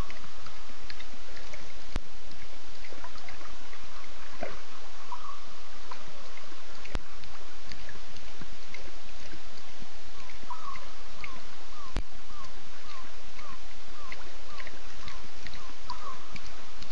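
Night ambience at a bush waterhole: a steady hiss full of small scattered chirps from night creatures. From about ten seconds in, a night animal gives a run of about a dozen short, identical calls, about two a second.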